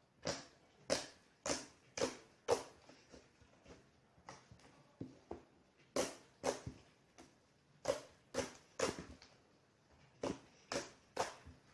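Slime being squished and poked by hand, giving a run of sharp wet pops and clicks at about two a second.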